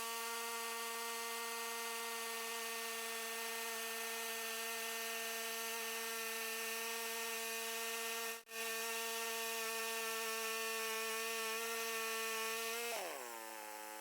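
Woodland Mills HM126 portable band sawmill running, a steady high whine with many overtones. It cuts out for an instant about eight and a half seconds in. About a second before the end the pitch falls and settles lower as the mill slows.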